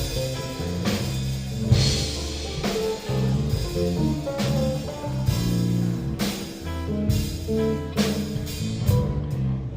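Rock band playing live: drum kit with regular hits and cymbal strokes over sustained low guitar notes.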